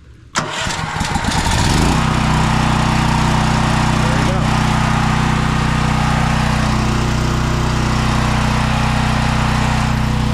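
Champion 100891 dual-fuel generator's 439cc single-cylinder engine cranked by its electric starter, catching almost at once and rising to a steady run, started cold on choke.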